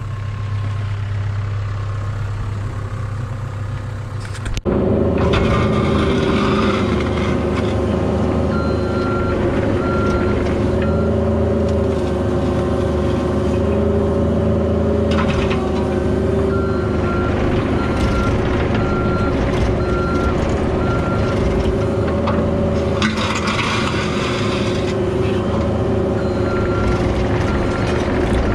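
Cat 304 mini excavator's diesel engine running steadily, getting abruptly louder about four and a half seconds in. A backup alarm beeps about once a second in three stretches over it.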